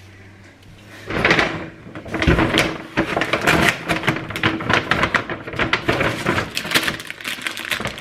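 Grocery bags and packaging rustling and crinkling as items are pulled out and handled: a burst about a second in, then dense, rapid crackling almost to the end.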